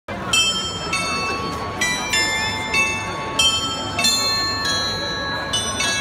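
A glockenspiel of tuned bells plays a slow tune, about ten struck notes roughly half a second apart, each ringing on under the next. Crowd chatter sits underneath.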